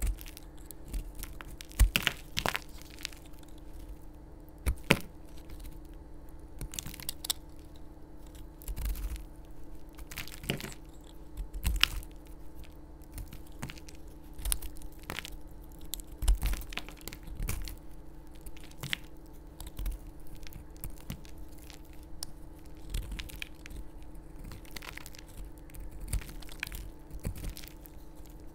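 A utility knife blade cutting into a stiff, crunchy purple sponge block, and pieces being broken off by hand: irregular sharp cracks and crunches, with a few louder snaps.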